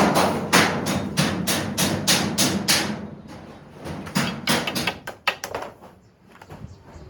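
A rapid series of sharp knocks, about four a second for the first three seconds, then scattered and fainter ones.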